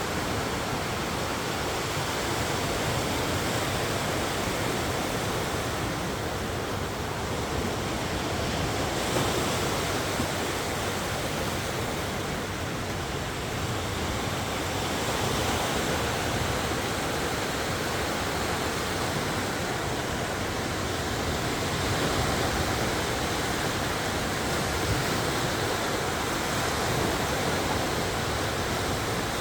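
Sea waves breaking on the shore in a strong wind: a steady rush of surf that swells and eases every few seconds, with wind blowing across the microphone.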